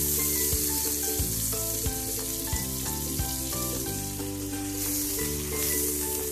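Butter sizzling steadily on a hot tawa as pav buns are laid into it, with background music throughout.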